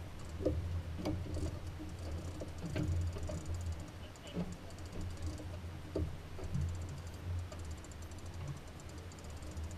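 Steady, muffled low rumble of the boat underway, with scattered light clicks and ticks from the tackle and deck as a man fights a hooked fish on rod and reel.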